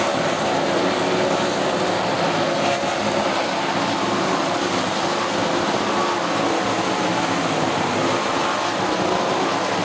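410 sprint cars' V8 engines racing on a dirt oval, several cars at once making a steady, loud, overlapping engine din.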